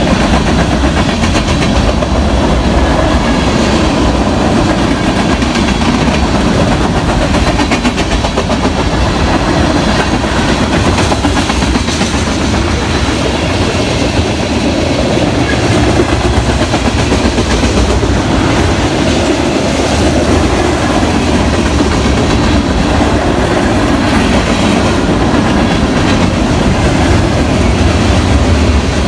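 BNSF freight train cars rolling past at speed, steel wheels clacking steadily over the rail joints.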